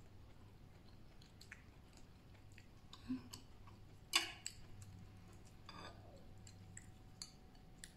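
A person chewing food quietly, with faint mouth clicks. About four seconds in a metal spoon clinks against a ceramic bowl as curry is scooped, over a faint steady low hum.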